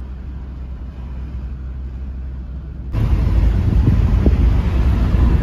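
A steady low rumble, then about three seconds in a sudden, louder, gusty rumble of wind buffeting the microphone.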